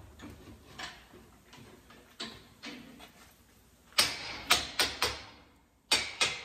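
Hammer blows on the steel yoke of a truck driveshaft held in a vise, driving the U-joint bearing caps out to remove the worn joint. A few light knocks of handling come first, then about four seconds in a quick run of sharp metal strikes, some ringing briefly.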